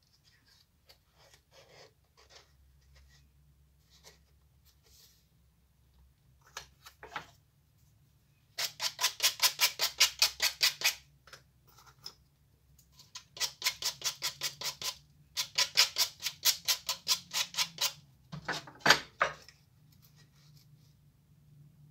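Small wooden strips sanded by hand with a sandpaper-covered block. The fast back-and-forth strokes come in three runs of a few seconds each, about six or seven strokes a second, starting about nine seconds in. Before that there is quieter scraping and handling of the thin wood pieces.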